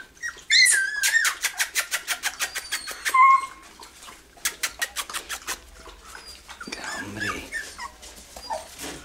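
Podenco Orito Español puppies about a month old whimpering and squealing in high, gliding whines, with a lower call near the end. Two fast runs of sharp clicks, about nine a second, sound under the whines in the first half.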